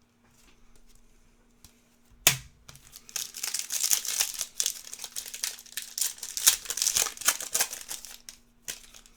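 A foil trading-card pack being torn open and its wrapper crinkled: a sharp snap a couple of seconds in, then about five seconds of dense crackling and rustling that fades out near the end.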